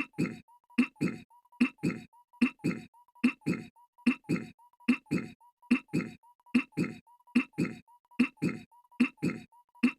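Goofy's cartoon throat-clearing, a sharp click then two short low grunts, looped over and over about once every 0.8 seconds so that it forms a steady rhythm.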